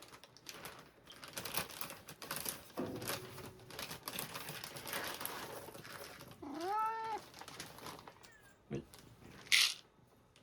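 A plastic bag of cat food crinkling and rustling as it is opened and handled, then a cat meows once, a call that rises and falls, about six and a half seconds in.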